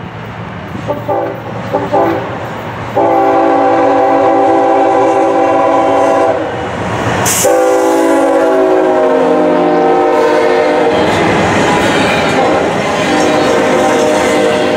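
The multi-chime air horn of a Norfolk Southern freight's lead locomotive, a GE ES40DC: a couple of short toots about a second in, then two long blasts as the locomotives pass, with a brief sharp burst of noise between them. After the horn stops, the double-stack intermodal cars rumble and clatter by over the rails.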